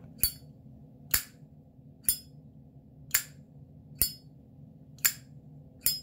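Flip-top lid of a Zippo 49586 metallic red windproof lighter being snapped open and shut over and over: seven sharp metallic clicks about a second apart.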